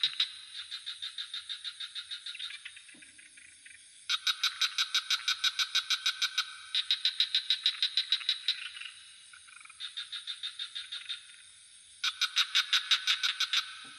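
Frogs calling in fast pulsed trills, about eight pulses a second, in overlapping bouts of a few seconds with short pauses between. A steady high-pitched insect drone from crickets runs underneath.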